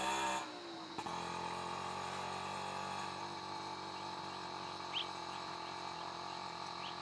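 Steady outdoor background with a constant hum, and a short rising bird chirp about five seconds in, with a fainter chirp near the end.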